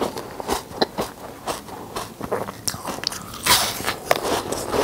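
Ice crunching and cracking between the teeth as a slab of frozen ice-tray ice is bitten and chewed, picked up close by a lapel microphone. It is a quick run of sharp cracks, with the loudest crunch of bites about three and a half seconds in.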